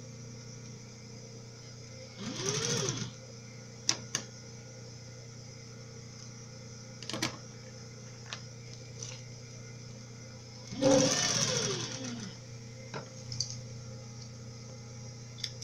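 Sewing machine stitching bias binding onto a fabric edge in two short runs, each speeding up and slowing down again, over a steady low hum. A few light clicks fall between the runs.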